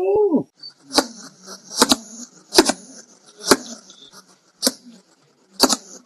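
A hedgehog making a series of short, sharp huffing snorts, about one a second. It is preceded in the first half-second by the tail end of an orangutan's pitched call, which rises and falls.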